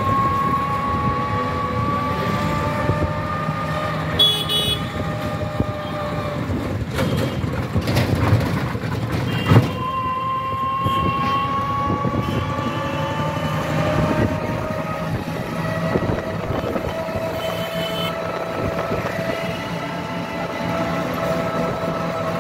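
Street traffic heard from inside a moving vehicle: steady road rumble, with a motor whine that rises slowly in pitch as the vehicle gathers speed. The whine breaks off at a sharp knock about nine and a half seconds in, then starts rising again, with a few brief rattles and clicks.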